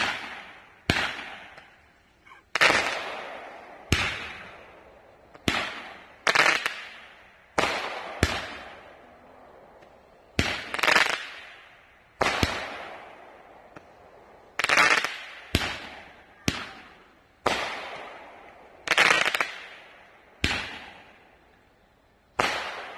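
World Class Fireworks 'Beyond The Glory' 5-shot roman candles firing: about twenty sharp bangs at uneven intervals, some in quick pairs, each trailing off in an echo.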